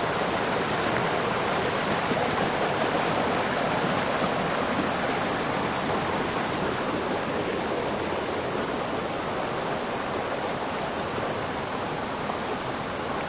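Water of a large waterfall rushing, a steady even noise with no change.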